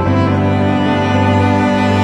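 Background music of slow, sustained bowed strings, with a deep cello-like line holding one long chord.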